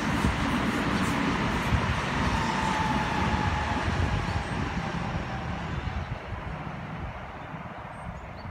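Seibu Haijima Line electric commuter train running past along the track, its noise slowly fading as it moves away. A faint steady whine sounds in the middle.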